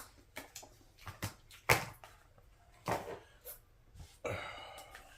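A person eating: a scattering of short clicks and taps from the utensil and mouth, the loudest a little under two seconds in, with a short rustly stretch near the end.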